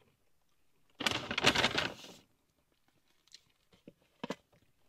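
Paper takeaway packaging rustling and crinkling for about a second as a box of chips is pulled from a KFC paper bag, followed by a few faint light taps near the end.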